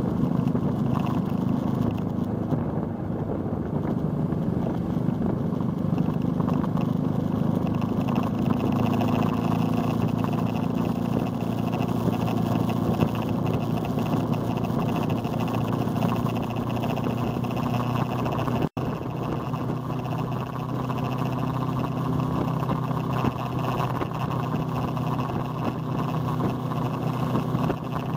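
Motorcycle engine running at a steady cruising speed, heard from the moving bike with wind rushing over the microphone. The sound cuts out for an instant about two-thirds of the way through.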